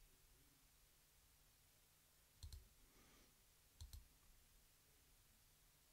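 Near silence: room tone with two faint, brief clicks, about two and a half and four seconds in.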